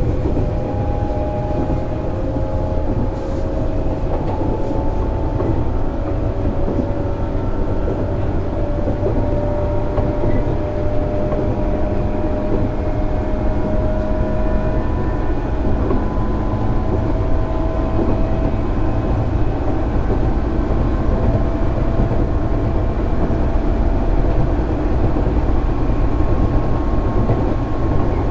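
Running sound of a JR 205 series 600-subseries electric train, heard from inside the car: a steady heavy rumble of wheels on rail, with the whine of the traction motors and gears climbing slowly in pitch as the train gathers speed.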